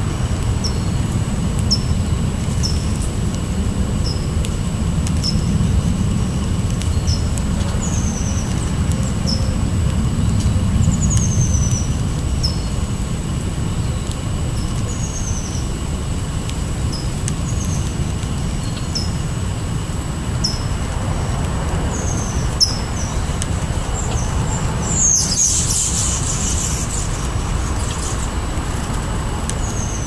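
A small bird gives short, falling chirps about once a second over a low steady rumble like distant traffic. Near the end there is a brief rushing burst.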